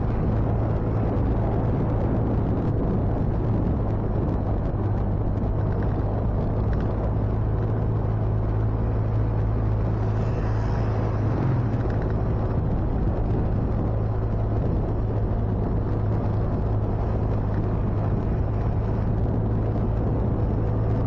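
Motorcycle riding at a steady cruising speed: a constant low engine hum mixed with wind rumble on the microphone.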